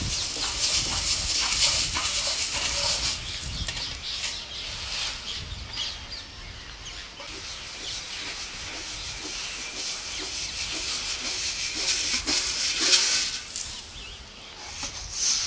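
Green parrot calling and chattering in short, sharp notes over a steady hiss of background noise, with the loudest call about thirteen seconds in.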